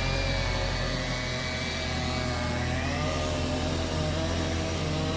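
An engine running steadily, its pitch dipping slightly and recovering about three seconds in.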